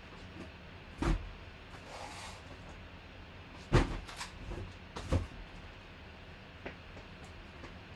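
A few dull knocks and clunks of objects being handled: three sharp ones about one, four and five seconds in, the middle one the loudest, then a couple of light ticks, over a low steady hum.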